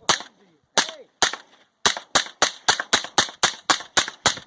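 Gun fired repeatedly: three single sharp shots spaced about half a second apart, then a fast string of shots at about four a second.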